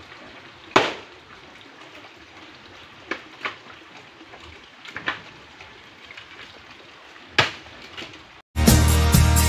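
Quiet outdoor background with a handful of sharp taps or knocks, the loudest about a second in and others at about three, five and seven seconds. Near the end, loud music with a steady beat starts abruptly.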